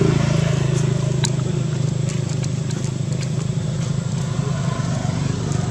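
Steady low engine hum, as from a motor vehicle running, with a few faint clicks over it, the clearest about a second in.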